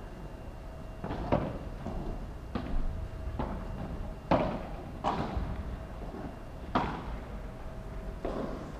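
Padel rally: about seven sharp, irregularly spaced knocks as the ball is struck by solid paddles and bounces off the court and glass walls, the loudest about four seconds in.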